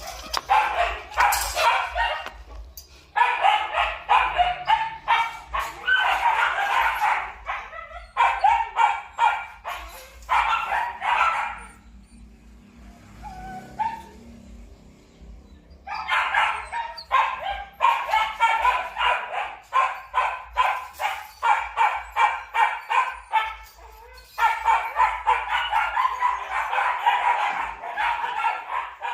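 Belgian Malinois barking in rapid bouts, several barks a second, with a lull of a few seconds midway.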